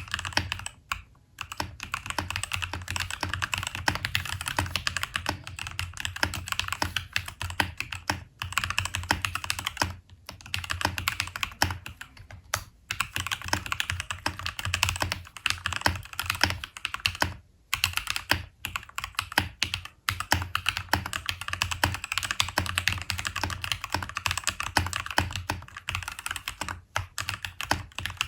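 Typing on a mechanical keyboard fitted with Glorious Lynx linear switches as they come from the factory, with stock factory lube: fast runs of key presses broken by short pauses.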